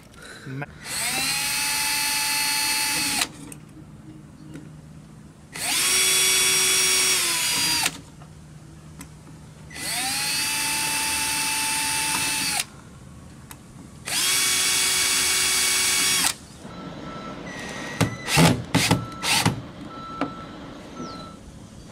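Milwaukee cordless drill running in four separate bursts of about two to three seconds each, its motor pitch winding up at the start and down at the end of each: drilling pilot holes and driving a screw through the dome light's base into the boat console. A few sharp clicks and knocks follow near the end.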